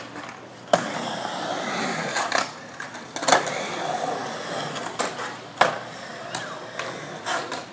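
Skateboard wheels rolling across a concrete bowl, broken by several sharp clacks of the board and trucks striking the surface and coping.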